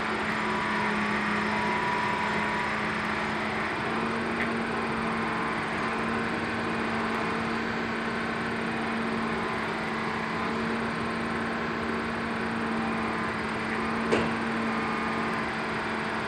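An intermodal gantry crane running with a steady hum as it hoists a highway trailer, with a single sharp knock about fourteen seconds in.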